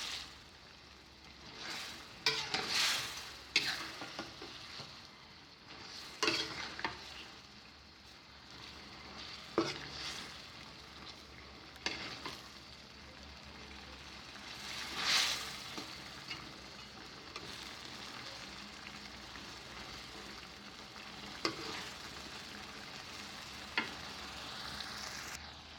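Shrimp frying in a sweet-and-sour chili sauce in a pan, a steady sizzle as the sauce cooks into them. A spatula scrapes and stirs the pan now and then, in separate strokes a few seconds apart.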